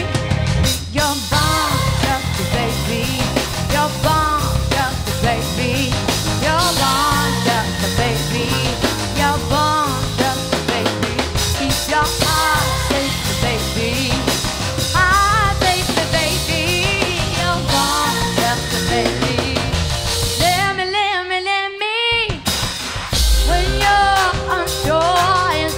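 Live soul band playing: a woman singing lead over drum kit, electric guitar and bass. A little past 20 s the band drops out briefly, leaving the voice nearly alone, then comes back in with a heavy low hit.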